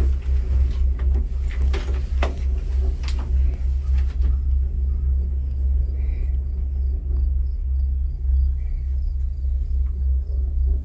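Low rumble inside a gondola cabin riding along its cable, with a few sharp clicks and knocks in the first four seconds.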